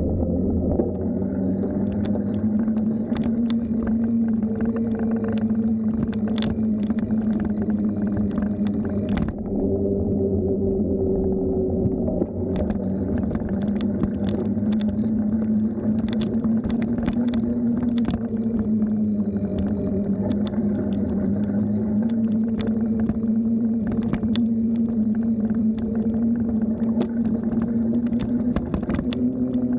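Bicycle in motion: a steady low hum that wavers slightly in pitch, with scattered clicks and rattles throughout.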